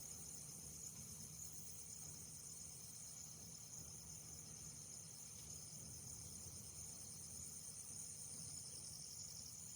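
Faint chorus of insects, a steady high-pitched trilling with a rapid fine pulse that never stops, over a low steady rumble.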